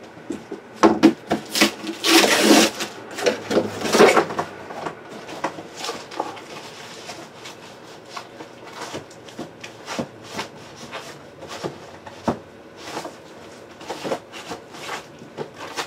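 Handling noise from boxes being moved and arranged on a table: irregular knocks, taps and rubbing. A louder scraping, rustling stretch comes about two to four seconds in.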